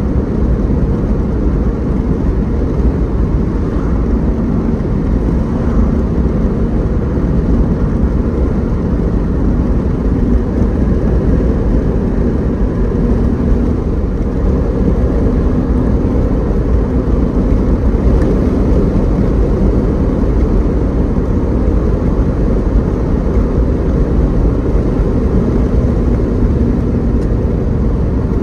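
Car driving at a steady speed on a highway: a steady low rumble of road and engine noise.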